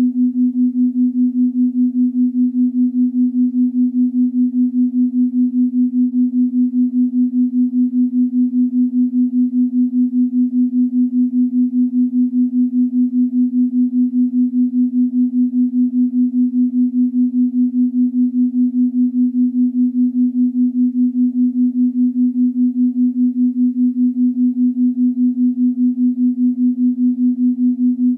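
A single steady electronic meditation tone, a pure pitch beating evenly about four times a second, typical of a binaural-beat track heard through one speaker.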